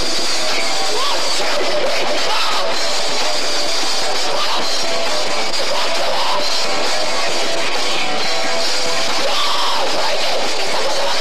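Live rock band playing loud, guitar-driven music with shouted vocals. The sound is dense and harsh, as from an overloaded old VHS recording.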